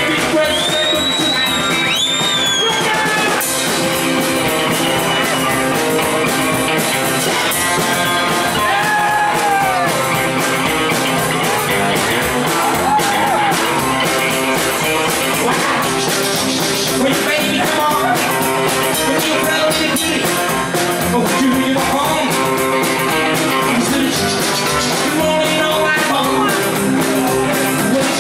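Rockabilly band playing a boogie, with guitar to the fore. A few sliding high notes come in the first three seconds.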